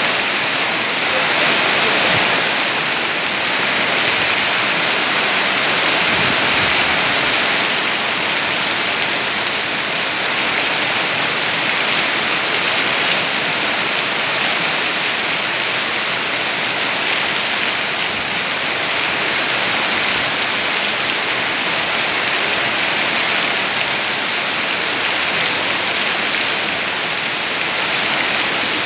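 Heavy rain pouring down on tree foliage in strong wind: a dense, steady hiss.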